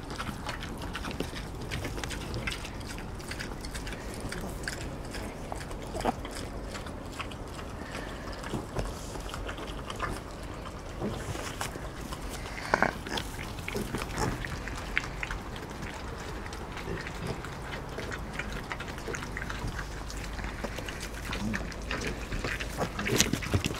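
Three-week-old Kunekune piglets grunting and snuffling softly close by, amid frequent small clicks and rustles. A few short calls stand out, the clearest about thirteen seconds in.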